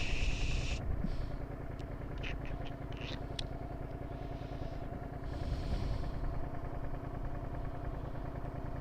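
Suzuki SV650S's 90-degree V-twin engine running steadily at a cruise, heard from the rider's helmet with a low rumble of wind.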